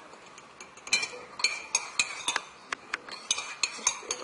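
Metal spoon clinking against the inside of a ceramic mug while stirring yogurt: about a dozen quick, uneven ringing taps, starting about a second in.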